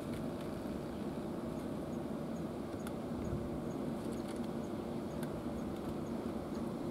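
Steady low background rumble with a faint hum, and a few faint clicks as a cat eats dry food from a dish.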